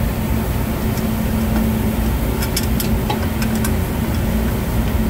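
Steady low mechanical hum of running equipment, one constant tone under a rumbling drone. A few light clicks come in about halfway through as hands work among the fryer's fittings.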